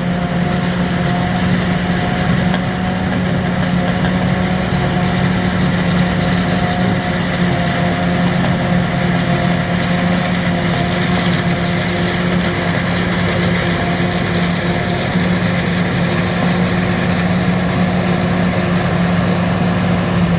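Farm machinery engines running steadily during corn silage chopping in the field: a constant, unchanging drone.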